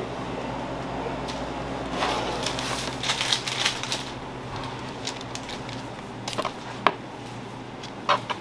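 A metal offset spatula spreading thick cake batter across a parchment-lined metal sheet pan, scraping with a flurry of clicks about two to four seconds in and sharp single clicks near the end. A steady low hum of kitchen equipment runs underneath.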